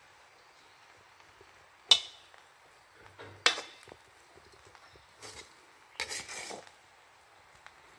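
Wooden spatula knocking and scraping against a large metal wok while stir-frying rice. A sharp knock with a brief metallic ring comes about two seconds in and another about a second and a half later, followed by softer knocks and a short scrape.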